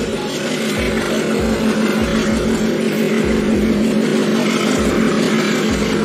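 Train locomotive running with a steady low hum, with dull low thumps about once a second.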